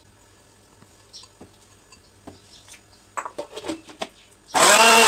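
Electric blender pulsed on briefly near the end, its motor whine rising and then falling as it starts grinding fried onions, yogurt and tomatoes into a paste. Just before, a few light clicks and knocks.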